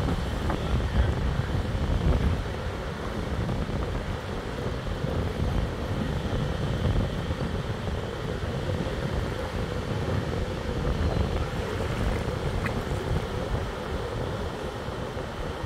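Wind buffeting the microphone, a low gusty rumble, strongest in the first couple of seconds, over the steady wash of surf.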